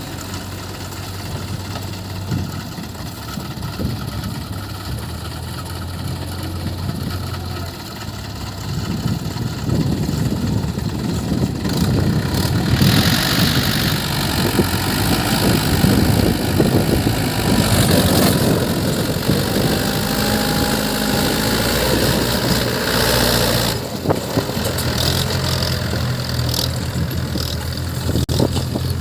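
JCB 3DX backhoe loader's diesel engine idling steadily, then working harder and louder for about fifteen seconds in the middle, then settling back to a steady idle near the end.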